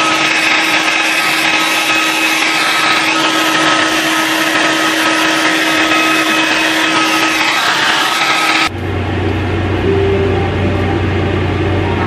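Handheld hair dryer running steadily, a rush of air with a steady whine in it, drying a layer of wig glue on a wig cap. It cuts off suddenly about three-quarters of the way through, leaving a lower steady hum.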